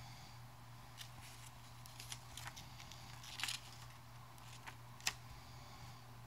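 Faint handling of paper gift tags: a few light clicks and a short rustle of card about three and a half seconds in, then a sharper click about five seconds in, over a steady low hum.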